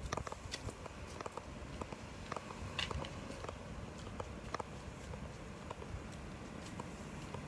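Footsteps of someone walking on wet asphalt: a loose series of light taps and scuffs over a low, steady outdoor rumble.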